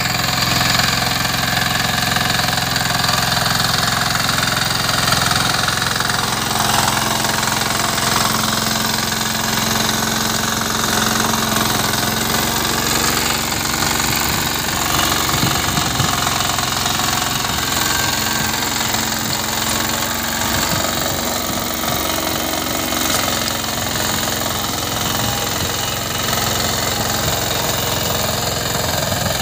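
Walk-behind power tiller's small engine running steadily under load while its rotary tines till the soil, with irregular clattering knocks in the middle.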